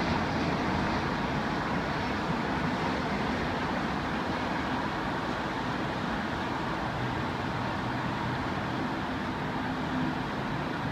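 Steady broad rumble of road traffic mixed with the engines of a jet airliner on final approach, easing slightly in level.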